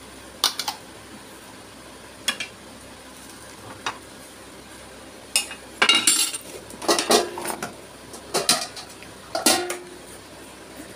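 Stainless steel pots, lids and a ladle clinking and clattering while food is served into a steel tiffin lunch box: a few separate clinks, then a busier run of clatter from about six seconds in.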